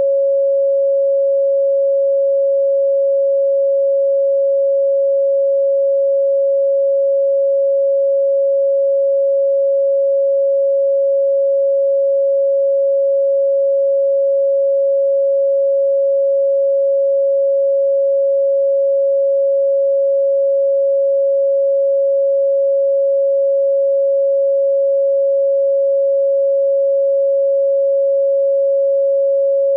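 Steady electronically generated sine tone at about 552 Hz (the 551.994 Hz frequency listed for Bai Qian), held at a constant pitch and level, with a much fainter high tone near 4 kHz alongside.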